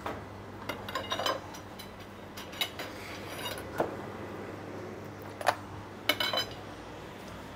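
Metal kokoreç skewers knocking and clinking against a stainless steel tray as the cooked rolls are handled, in a string of sharp metallic clinks. A steady low hum runs underneath.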